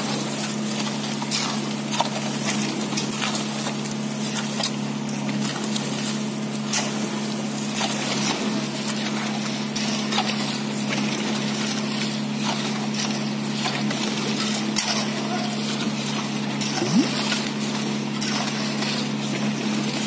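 Steady low hum of a concrete pump running, with irregular scrapes and slaps of hoes spreading wet concrete around the pump's delivery pipe as concrete spills out of it.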